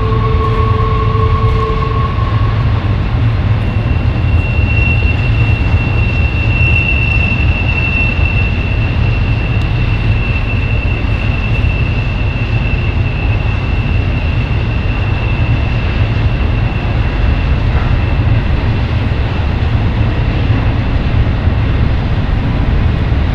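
A long double-stack intermodal freight train rolling past, its container cars making a steady, heavy rumble. A thin, steady high-pitched whine rides over the rumble from a few seconds in until near the end.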